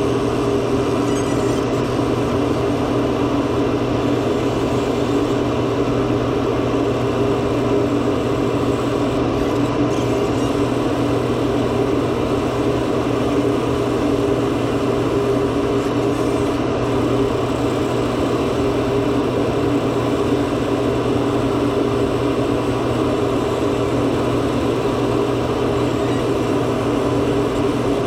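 Steady machine hum with a low drone and a few fixed tones, running without change.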